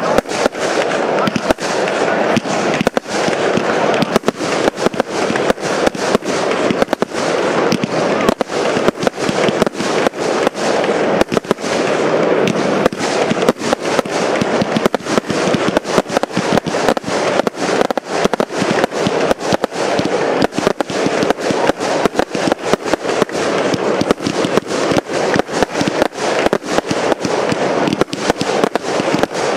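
Firework batteries firing aerial effects in a continuous barrage: a dense, unbroken run of bangs and crackling pops, several a second, over a steady hiss.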